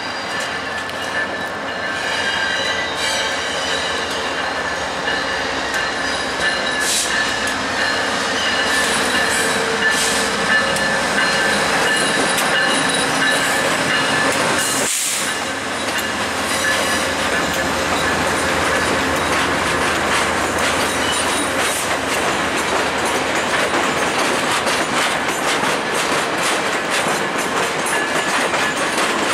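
VIA Rail P42 Genesis diesel locomotive hauling HEP-II passenger cars out at low speed over the station throat's switches. The wheels and rails make a steady running noise, with thin high squeals from the wheel flanges on the curves and clicking over the rail joints and frogs.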